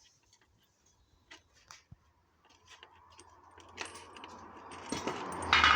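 Light scattered clicks and clinks of spark plugs being handled, then a rustling noise that grows louder toward the end.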